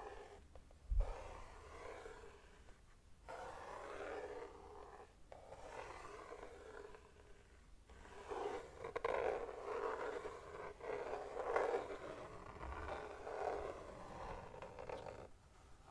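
Hands rubbing and brushing over a mechanical keyboard in stretches of a few seconds with short pauses, with a soft bump about a second in and a few faint clicks.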